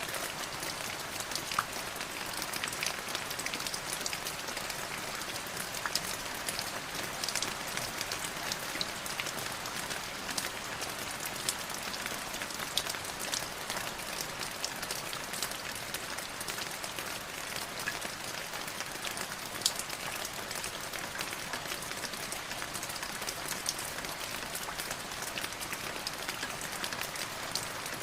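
Light drizzling rain falling steadily, a soft even hiss with many small drops pattering and ticking on a surface.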